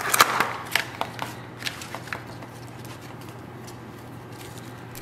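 Plastic clamshell herb container being opened and handled, a quick run of crackles and clicks in the first two seconds, then fainter crinkles as basil leaves are pulled out. A low steady hum sits underneath.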